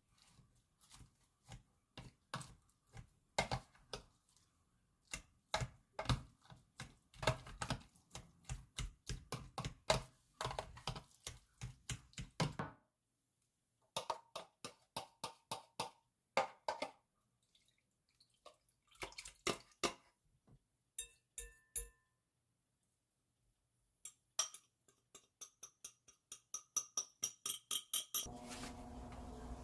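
Kitchen utensils tapping and clinking on a bowl or dish in quick runs of short strikes. Near the end comes a faster run of bright, ringing clinks.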